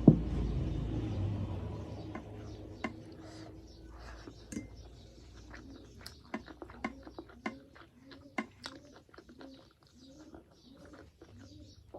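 Eating at a plate: a sharp knock at the start, then scattered small clicks and taps of dishes and mouth. From about halfway through, a pigeon or dove coos softly over and over in the background.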